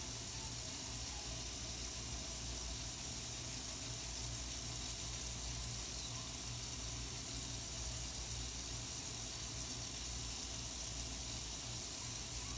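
Tap water running steadily from a faucet into a stainless steel sink.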